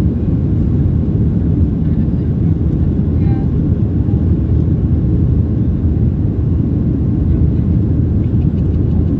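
Steady low cabin roar inside a Boeing 737-800 in the climb, from its CFM56-7B engines and the airflow over the fuselage.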